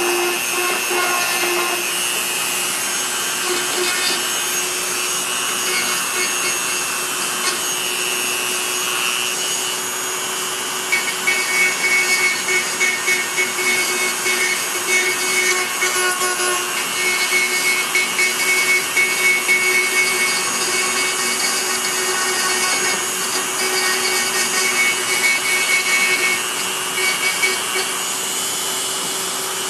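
Small electric grinder running and grinding a V-groove into the plastic bumper along the crack. Its motor hum is steady, with a rasping, uneven grinding sound from about a third of the way in as the tool bites into the plastic.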